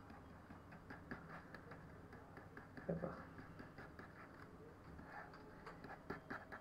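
Faint, irregular clicks of a computer mouse, with a short low vocal sound about three seconds in.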